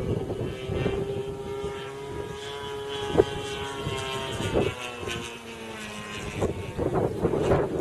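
Gasoline engine of a radio-controlled aerobatic model airplane running in flight overhead, a steady propeller drone whose pitch shifts lower a little past halfway. It grows louder near the end.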